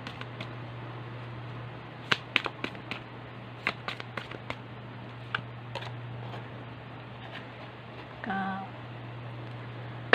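Tarot cards being shuffled and laid out by hand: a run of sharp card snaps and taps at irregular intervals, over a steady low hum. A brief hummed vocal sound about eight seconds in.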